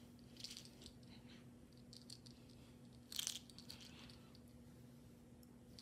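Near silence with a low steady hum, broken by a few faint scratchy rustles as a furry puppet is moved against the bedding and close to the microphone; the loudest comes a little after three seconds in.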